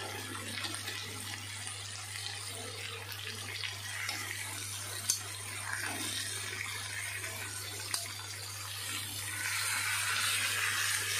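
Marinated chicken pieces sizzling steadily as they fry in a pan, with two sharp clicks of a metal turner against the pan about five and eight seconds in. The sizzle gets louder near the end as pieces are turned onto their other side.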